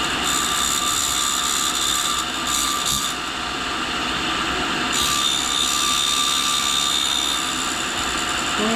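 Tool and cutter grinder running, spinning a reinforced cutoff wheel against a high-speed steel tool blank: a steady high-pitched whine over a grinding hiss, its tone shifting slightly about three and five seconds in.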